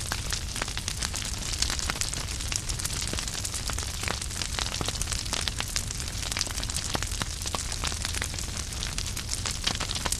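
Wood fire crackling in a fireplace: frequent irregular pops and snaps of burning logs over a steady hiss of flames and a low rumble.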